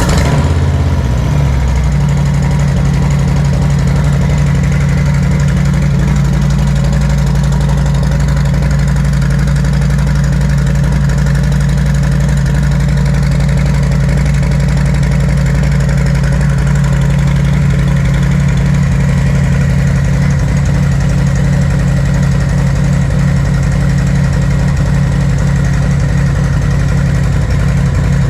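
Harley-Davidson Street Bob's Milwaukee-Eight 114 V-twin, breathing through Shark Road slip-on mufflers, idling just after its first start with the new exhaust. It settles in the first couple of seconds, then runs at a steady, loud idle.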